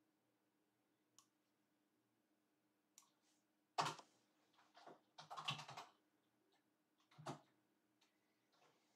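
Near silence broken by scattered faint clicks and knocks, the loudest about four seconds in with a quick run of them just after, over a faint steady hum.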